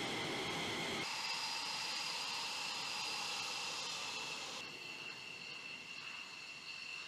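Military jet engines running at idle on a flight line: a steady high turbine whine over a rush of exhaust noise. The sound changes abruptly about a second in, losing its low rumble, and again about four and a half seconds in.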